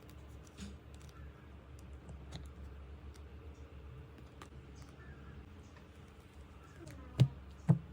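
Scattered light clicks and taps over a low steady hum, with two sharp knocks about half a second apart near the end.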